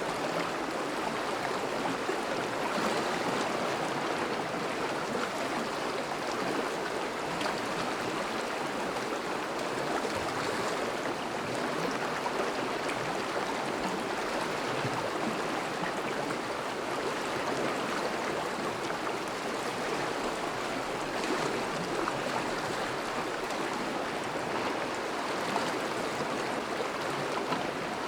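Steady flowing water of a small river running through a thaw, a continuous even rush of current.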